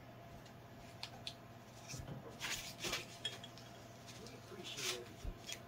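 Metal loop carving tool scraping and gouging out the inside of a clay box, in several short, uneven strokes.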